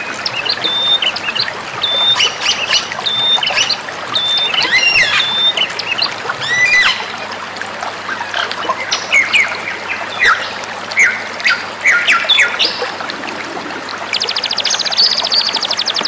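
Songbirds calling and singing: a run of short, clear whistled notes repeated about once or twice a second, then varied chirps and quick up- and down-sweeping whistles, and from about fourteen seconds in a fast, buzzing trill.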